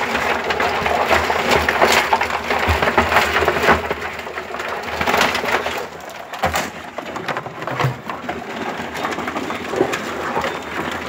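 Live crabs scrabbling in a plastic bucket: a dense crackle of legs and shells clicking and scraping against one another and the bucket walls.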